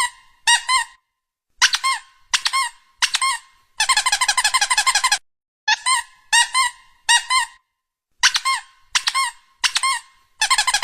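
Squeaky rubber toy sound effect: short bursts of three or four quick high squeaks, repeated with gaps of silence, with a longer rapid run of about a dozen squeaks about four seconds in and again near the end.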